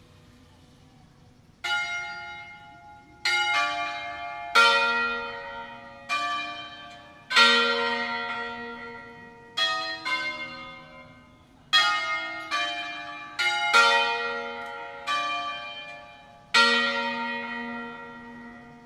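Church bells of a five-bell peal tuned in B♭, struck one at a time at different pitches in a slow, uneven tune; each note rings out and fades, and some overlap. The strokes begin about a second and a half in, and about fourteen follow.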